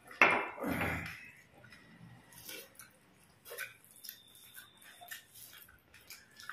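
Two people eating rice and curry by hand: two short loud bursts in the first second, then scattered soft clicks and mouth noises of chewing and fingers working the food on the plates.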